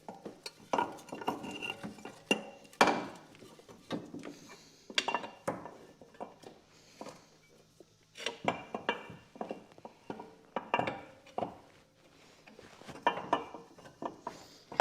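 Irregular clinks and knocks of metal parts and hand tools as an engine mount is worked back into place under the car's engine. The strikes come in short clusters of several light hits spread through the whole stretch.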